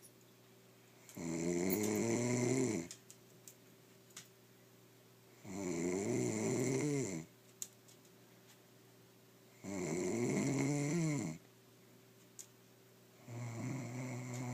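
Loud snoring: four long, buzzing snores about four seconds apart, each lasting about a second and a half, with quiet pauses between; the fourth begins near the end.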